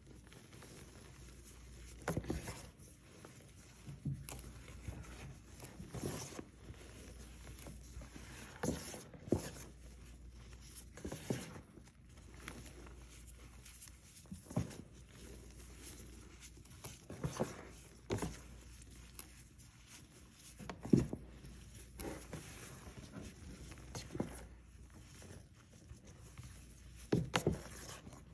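Soft cornstarch reforms crushed and squeezed by hand in loose cornstarch powder, giving short crunches every couple of seconds.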